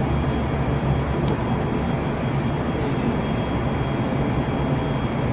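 JR Central 373 series electric train running at speed, heard from inside the car: steady rumble of wheels on rail with a thin, constant high tone above it.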